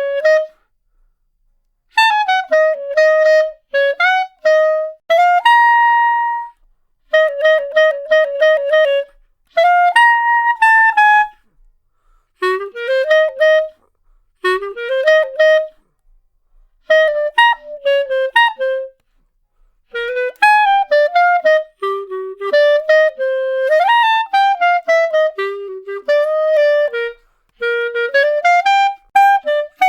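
Solo clarinet playing short phrases of quick notes, with brief pauses between phrases and a few smooth rising glides up to higher notes.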